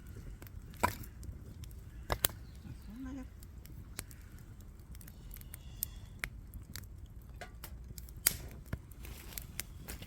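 Scattered light clicks, taps and rustling of things being handled, with sharper knocks about one second in, about two seconds in and again about eight seconds in.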